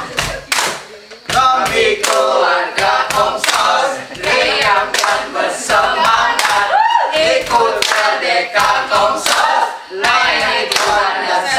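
A small group of young voices singing a chant together without accompaniment, clapping their hands in a steady rhythm.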